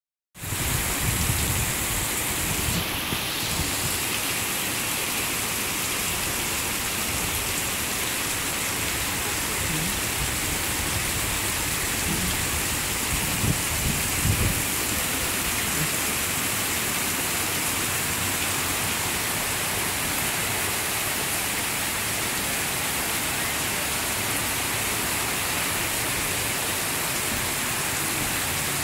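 Heavy rain pouring down steadily: a dense, even hiss of a downpour.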